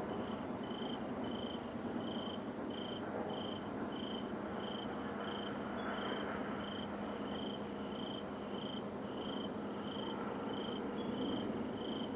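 A cricket chirping steadily, a short high chirp about three times every two seconds, over a continuous broad rumbling noise with a low steady hum beneath.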